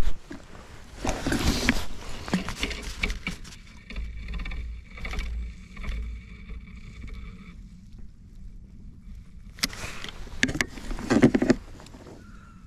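Rustling and knocking from handling a spinning rod and reel aboard a small inflatable boat, loudest about a second in and again near the end, with a faint steady whine for a few seconds in the middle.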